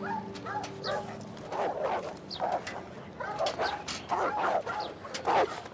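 A crowd of caged dogs barking and yelping over one another in short, overlapping barks.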